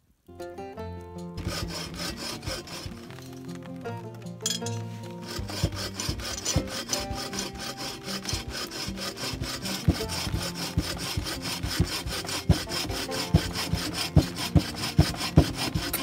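Hand saw cutting through a log of firewood in steady back-and-forth strokes, with background music under it.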